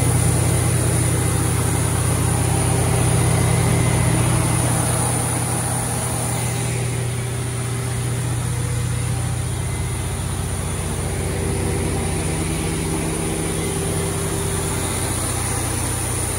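A 1250 kVA diesel generator set running steadily under full load: a deep, even engine hum with mechanical noise over it, a little quieter after about five seconds.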